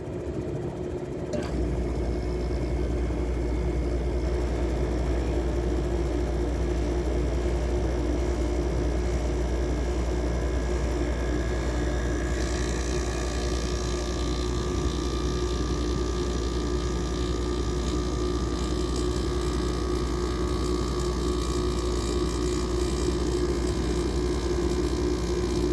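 A 2003 GE window air conditioner built by LG, started cold. With the fan already running, its rotary compressor kicks on about a second and a half in with a low hum, then runs steadily. It sounds very bad and shakes hard, which the owner puts down to worn compressor mounts.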